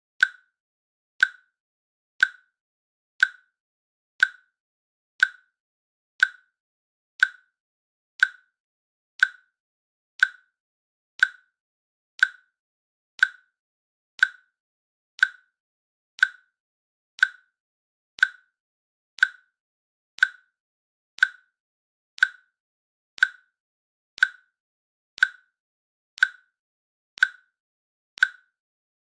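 Countdown timer clicking once each second: short, sharp, evenly spaced clicks with silence between them, marking off the seconds.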